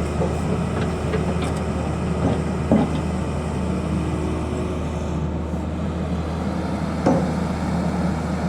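Tata Hitachi excavator's diesel engine running steadily, with a couple of short knocks, one about 3 seconds in and one about 7 seconds in.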